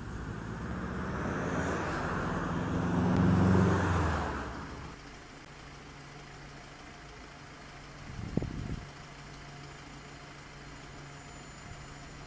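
A road vehicle passes close by, its engine and tyres growing louder to a peak about three and a half seconds in, then fading away. After it, a low steady hum remains, broken by a brief knock about eight seconds in.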